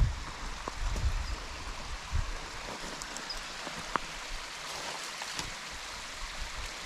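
Steady hiss of rushing water from a waterfall, with a few faint knocks and some low rumble in the first couple of seconds.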